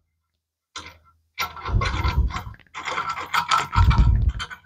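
Steel bolt, hex nut and washers being unscrewed by hand from a freshly set rivnut in a steel plate: metal scraping and small clicks of the parts turning against each other, starting about a second in and running on with short breaks.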